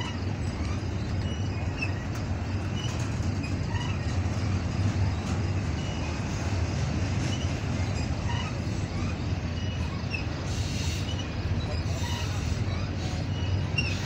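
Double-stack intermodal well cars rolling past close by: a steady low rumble of steel wheels on the rails, with faint short squeaks scattered through it.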